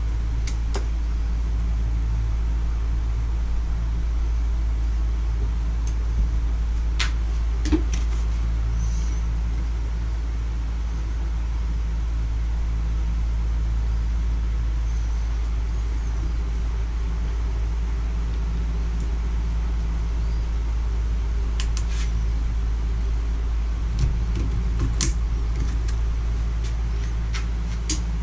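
A steady low rumbling hum, with a few short light clicks and taps as small parts, rubber seals and tools are handled on a workbench.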